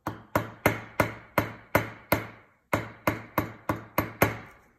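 Small ball-peen hammer tapping a wire rivet through an enameled piece against the anvil of a bench vise, in quick light metal taps about three a second with a short pause a little past the middle. It is tightening a rivet that had worked loose.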